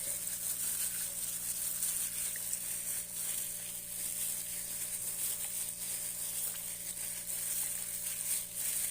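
Chicken breast pieces being mixed with flour, fish sauce and pepper in a bowl: faint, irregular soft wet clicks over a steady hiss and a low hum.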